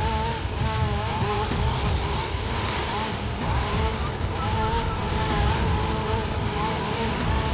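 Two-stroke chainsaw engine running at high revs, its buzzing pitch wavering up and down repeatedly as it is worked.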